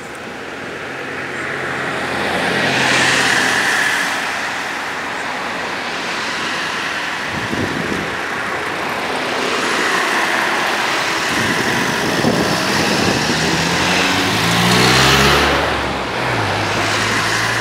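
Cars passing close by on the road, tyre and engine noise swelling and fading as each goes past, loudest about three seconds in and again near fifteen seconds. From about thirteen seconds one car's engine rises in pitch as it accelerates past, and a steady engine hum follows near the end.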